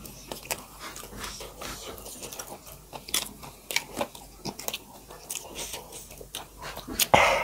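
Close-up mouth sounds of people eating maize dhido and chicken curry by hand: wet chewing and lip smacks in irregular short clicks, with a louder rush of noise near the end.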